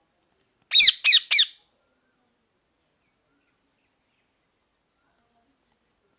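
Parrot giving three quick, loud squawks in a row about a second in, each one sliding down in pitch.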